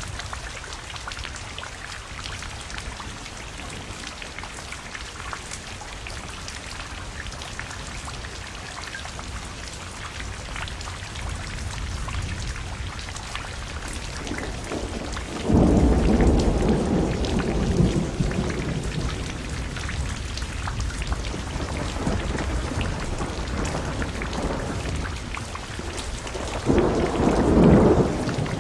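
Steady rain falling on a pool's surface and wet paving. About halfway through a low rumble starts suddenly and lasts a few seconds, and a shorter one comes near the end.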